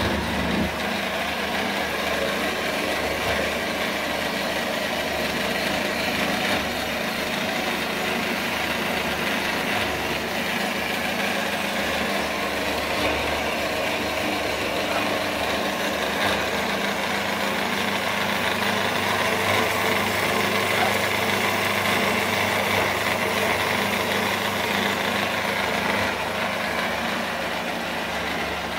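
Clarke 6x4 horizontal metal-cutting bandsaw running steadily: an even electric-motor hum with the blade and wheels turning.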